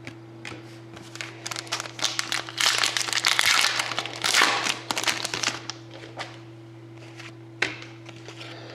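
Trading card pack wrapper crinkling and tearing as it is handled and opened, the crinkling densest in the middle, with a sharp click near the end and a steady electrical hum underneath.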